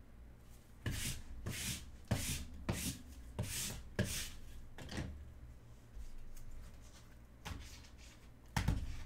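Gloved hands handling trading cards and plastic card holders on a table: a quick run of rubbing, scraping and light knocks, a lull, then two more near the end, the last the loudest.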